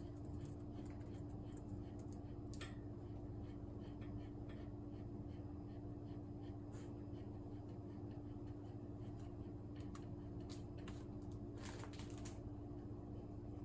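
Typing and clicking on a System76 Oryx Pro laptop's keyboard. Light key clicks come in quick runs during the first few seconds, then scattered single clicks, then a short cluster of sharper clicks near the end, all over a steady low hum.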